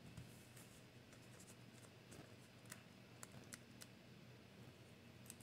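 Near silence, with a few faint ticks and light rustles from fingers handling a die-cut masking-paper leaf.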